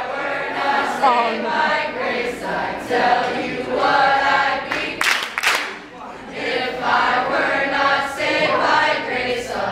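A small mixed group of young men and women singing together unaccompanied, in sustained phrases, with a brief noisy burst about five seconds in.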